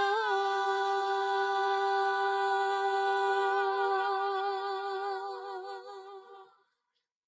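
A high male singing voice holding one long final note with slight vibrato, fading out and ending about six and a half seconds in.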